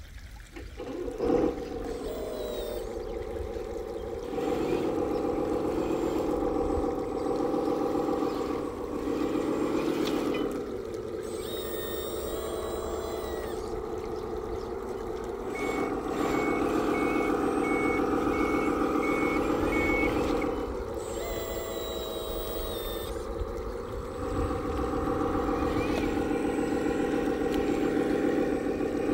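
Engine sound of a 1/14-scale RC Volvo A40G articulated dump truck, a steady drone that swells and drops back in several long stretches as it is driven. In the middle a reversing beeper sounds about seven times at a steady pace.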